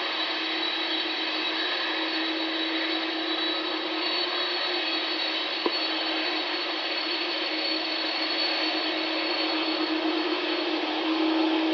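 Boeing 747-400's jet engines running at taxi power: a steady whine over a low hum, with one short click about halfway through.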